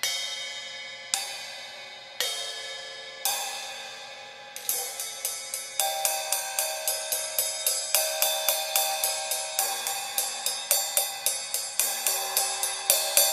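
The bottom cymbal of a pair of Zildjian K Custom Hybrid 13¼-inch hi-hats struck alone with a stick, each stroke ringing out bright. Four strokes about a second apart, then from about four and a half seconds a quicker run of about three strokes a second, the tone changing as the stick moves to different parts of the plate.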